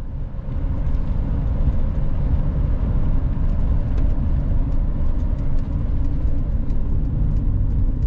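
A van driving at highway speed: a steady low rumble of engine and tyre noise on the road.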